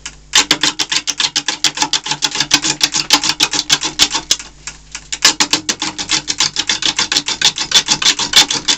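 Gouge roughing an off-centre green-wood blank on a wood lathe: a rapid, even clatter of cuts about seven a second, as the tool meets the wobbling blank's high side on each turn, over the hum of the lathe motor. The cutting eases off briefly about halfway through, then resumes.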